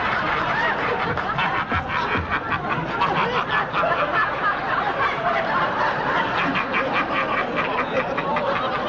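Large studio audience laughing together, a sustained wave of crowd laughter that holds steady without a break.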